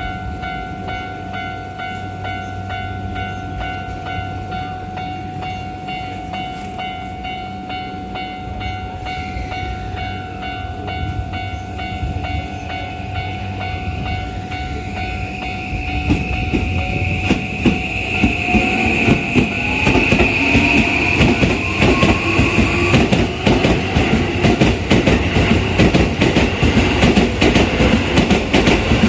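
Level-crossing warning bell ringing steadily while a Toei 5500 series electric train pulls out. From about halfway it gets louder: the train's motors whine, rising in pitch as it accelerates, and its wheels clatter over the rail joints.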